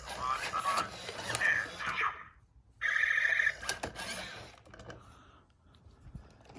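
A short electronic buzzing tone from a remote-control Buzz Lightyear robot toy, lasting under a second about three seconds in. Light clicks follow, and faint voices come before it.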